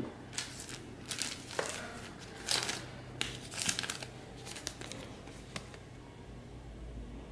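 Paper and plastic wrapping being handled in a small room, crinkling and rustling in irregular bursts. The rustling is busiest over the first five seconds and quieter after.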